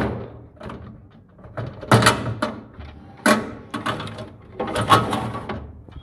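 Hard plastic rattling and scraping in four or five short bursts as a refrigerator's lamp and thermostat housing is worked loose and pulled out by hand.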